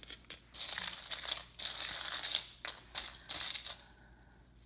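Metal costume jewelry clinking and jangling together as a hand rummages through a pile of pieces, with sharp little clicks. It dies down near the end.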